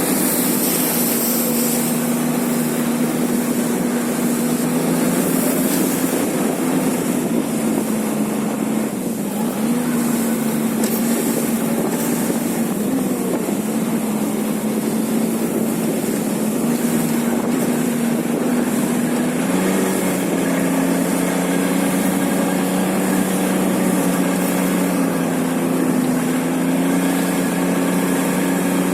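A vehicle's small engine running steadily at travelling speed, its pitch wavering slightly, with a second, lower engine note joining about two-thirds of the way through.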